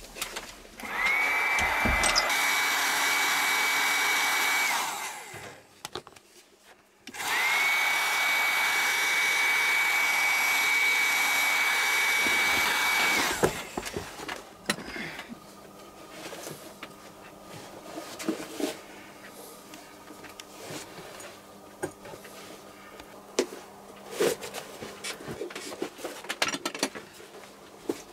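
A small high-speed electric motor tool runs twice, about four and six seconds each, spinning up to a steady high whine. The first run winds down gradually and the second cuts off sharply. After it come scattered light clicks and taps of handwork.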